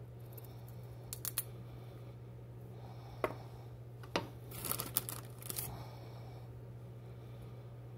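Hands handling a carrot and vegetable peelings with a small plastic tool on a paper towel: a few short clicks and scrapes, most of them in a cluster in the middle, over a steady low hum.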